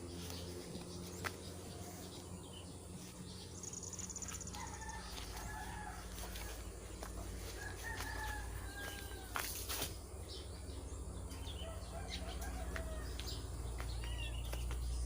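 Birds calling: a scatter of short chirps and calls, one held a little longer near the end, over a low steady hum, with a few sharp clicks.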